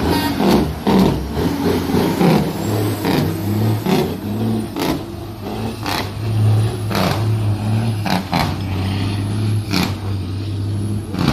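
Heavy diesel dump truck's engine pulling hard as the truck accelerates away under power, over a steady low engine hum, with several sharp clicks scattered through.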